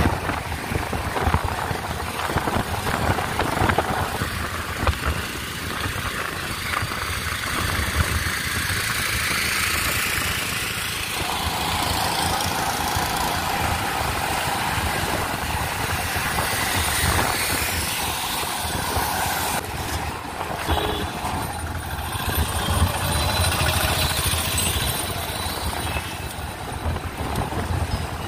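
Motor traffic on the road, heard from a moving bicycle, with wind rumbling on the phone's microphone.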